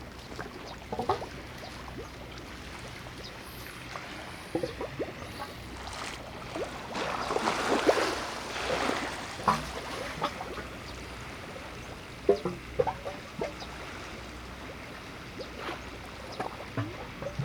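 Harbour water lapping and splashing, with a louder swell of sloshing about seven to nine seconds in, over a low steady hum.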